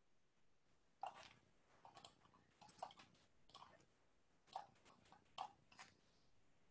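A dozen or so faint, short clicks and taps at irregular intervals, starting about a second in.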